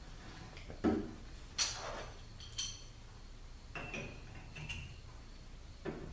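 Metal clinks and knocks as the steel gears of a Mercedes 722.9 transmission oil pump are set into the oiled pump body, about six separate strikes, a few with a short ringing tone.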